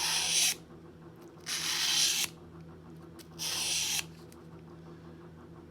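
Steel tweezer faces rubbed across 600-grit sandpaper on a glass tile: three gritty scraping strokes about two seconds apart, flattening the inner surfaces so the tips meet.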